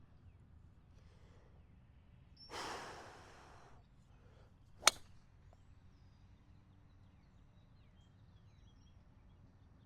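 A golfer's audible sigh-like exhale, then about a second later the single sharp crack of a golf club striking the ball off the tee.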